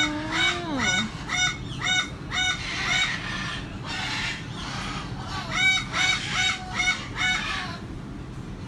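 A parrot giving a rapid run of short, repeated squawks, two or three a second, breaking off about three seconds in and starting again for a couple of seconds past the middle.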